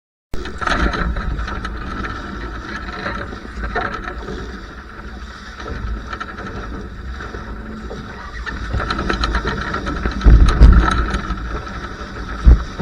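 Wind buffeting the microphone over water rushing and splashing along the hull of a Laser 2 sailing dinghy under way in a strong breeze. There are two heavy gusts, one about ten seconds in and one near the end.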